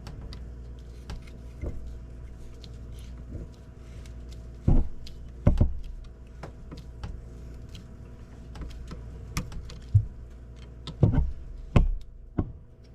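Hand tools clicking and knocking against metal as new stainless hose clamps are fitted and tightened on the raw water pump hoses: scattered light clicks with a few louder knocks, over a steady low hum.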